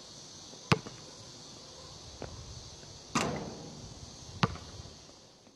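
Basketball bouncing on an outdoor hard court: four sharp bounces spaced a second or more apart, one louder with a brief ringing tail, over a faint steady hiss that fades out near the end.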